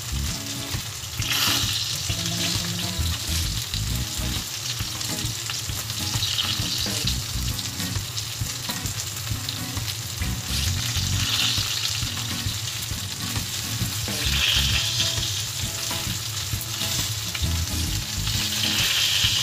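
Marinated chicken pieces sizzling steadily on a round grill plate while being turned with metal tongs. The sizzle swells louder every four to five seconds.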